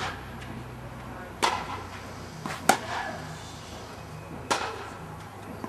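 Tennis rally inside an air-supported dome: three sharp racket-on-ball strikes about a second and a half apart, each trailed by a short echo, with a quieter ball bounce just before the middle strike. A steady low hum runs underneath.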